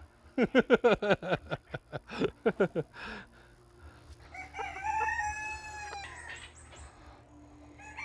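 Bantam chickens: a fast run of short clucking calls in the first few seconds, then a bantam rooster crowing about halfway through, one long call that drops in pitch at its end.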